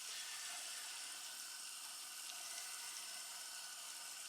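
Pot of water at a rolling boil with a batch of boilies cooking in a colander: a steady bubbling hiss.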